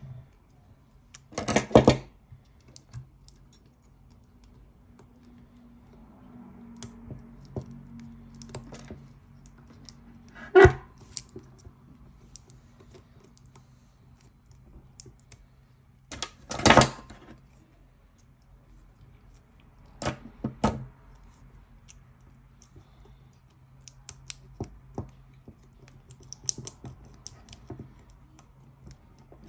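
Small clicks and taps of pliers and fingers working on a food processor motor's metal parts, with a few louder clattering knocks scattered through.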